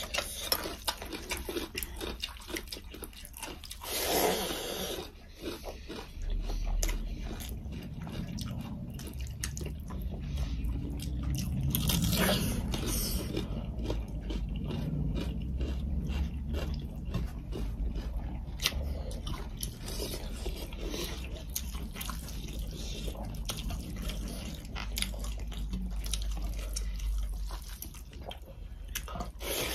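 Close-up eating sounds: crunching bites and chewing of raw cucumber, with many small crisp crunches throughout and two louder rustling bursts along the way.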